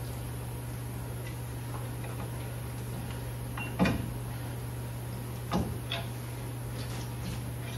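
A few sharp metal clanks and knocks, the loudest about four seconds in, from a pry bar working a rust-seized rear brake rotor off the hub of a truck, over a steady low hum.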